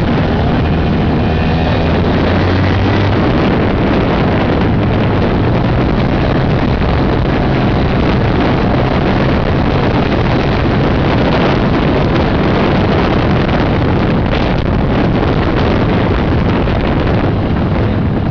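Yamaha Chappy 80cc two-stroke single-cylinder engine running steadily under way, its freshly rebored engine being test-ridden, with wind buffeting the microphone.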